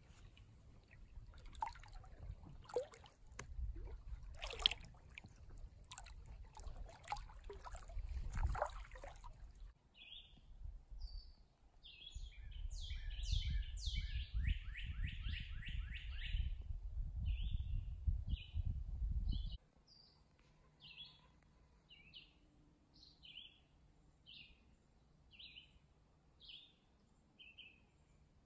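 Feet wading through shallow creek water over stones, sloshing and splashing, for about the first ten seconds. Then birds calling: a quick run of trilled chirps over a low rumble, followed by short chirps repeated about once a second.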